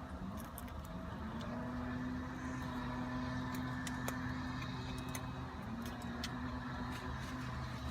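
Leaf blower engine running steadily. Its pitch dips and climbs back twice, once about half a second in and again near the end, as the throttle is let off and opened up. A few faint clicks sound over it.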